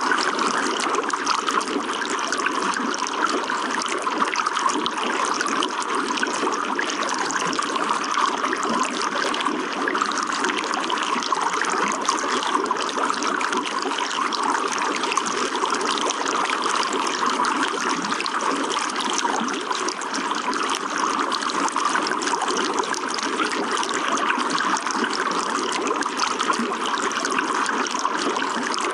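Running water trickling and splashing steadily, with a constant, even level.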